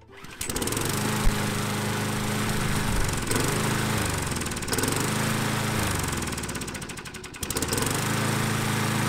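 Briggs & Stratton four-stroke lawn mower engine starting and running with its spark plug lead not fully attached, the spark still reaching the plug. The engine speed sags twice and picks back up.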